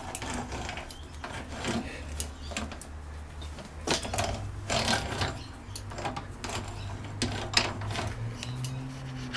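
Homemade mini lathe carriage being wound along the bed by its spoked handwheel through the rack-and-pinion feed: irregular metal clicks and rubbing of the gear and slides, over a low steady hum.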